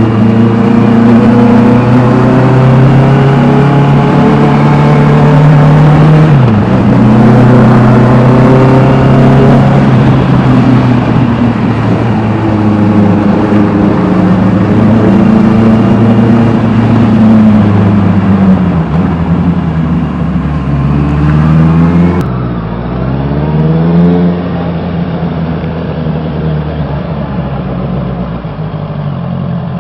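Honda CBR 650R inline-four with an Austin Racing aftermarket exhaust, running loud at steady revs with a brief dip in pitch a few seconds in. About two-thirds of the way through the revs fall away, rise and fall once more, then settle lower and quieter.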